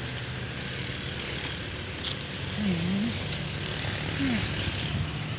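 Motorcycle engine running with a steady low drone, getting a little stronger near the end as it comes closer, with faint voices.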